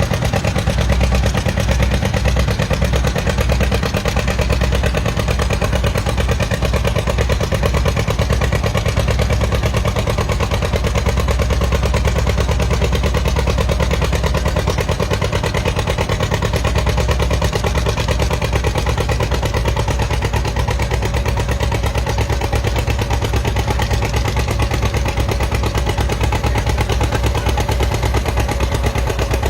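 Antique tractor engine running at a steady speed, with a rapid, even firing beat throughout.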